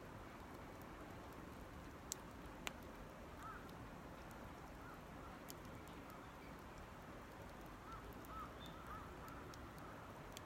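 Wood campfire burning with a low, steady hiss and two sharp crackling pops about two seconds in. A bird gives short, faint calls several times in the background.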